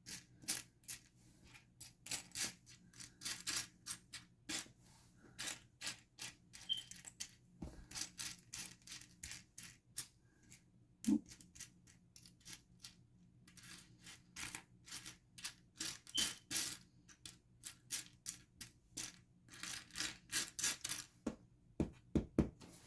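Loose LEGO bricks clicking and clattering as a hand sifts through a pile of them, in quick irregular runs of sharp clicks broken by short pauses.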